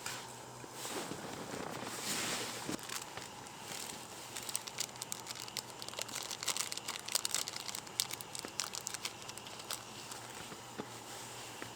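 Crinkling and crackling handling noises: rustling at first, then a fast run of small sharp clicks and crackles that fades near the end.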